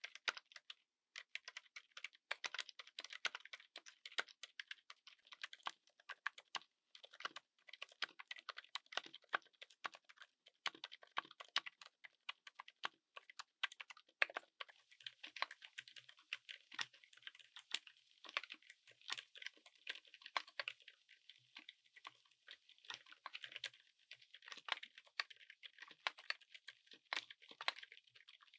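Typing on a mechanical keyboard fitted with silent switches: a fast, irregular patter of soft, muted keystrokes. About halfway through, the character of the keystrokes changes, with less low and middle body and a faint hiss appearing.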